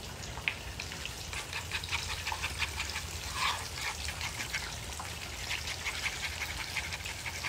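Whole fish deep-frying in hot oil: a steady, irregular crackle and spatter.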